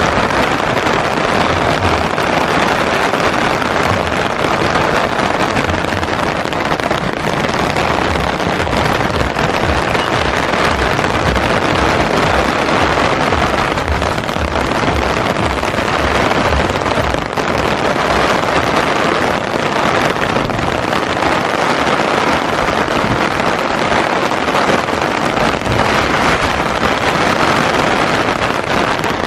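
Steady rain falling on an umbrella, a dense patter of drops hitting the fabric canopy, with irregular low thuds.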